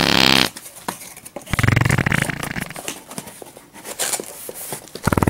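Dubbed-in fart sound effects: a long buzzy one trailing off about half a second in, another about a second and a half in lasting around a second, and a rapid flapping one near the end. Light clicks and cardboard rustling sound between them.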